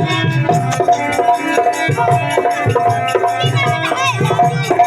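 Music with drum strokes under sustained melodic notes, with a few gliding notes near the end.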